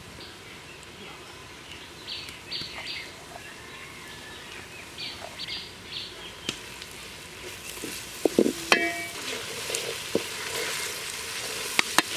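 Onions and ground spices frying in oil in an aluminium pot, the sizzle growing louder about halfway through as a wooden spatula stirs them, with knocks and scrapes of the spatula against the pot near the end. Birds chirp a few short times in the first half.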